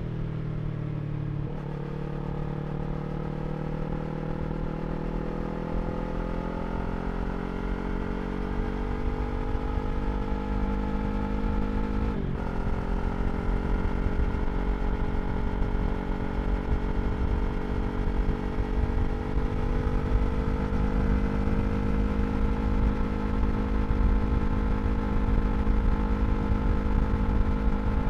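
Yamaha R3 motorcycle's parallel-twin engine through an Akrapovič slip-on exhaust while riding. The note changes quickly about a second and a half in, then the revs climb slowly. A brief break for a gear change comes about twelve seconds in, then the revs climb again and hold fairly steady near the end.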